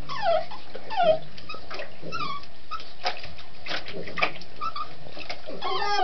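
Lhasa Apso whimpering, several short whines that fall in pitch, with scattered small knocks between them.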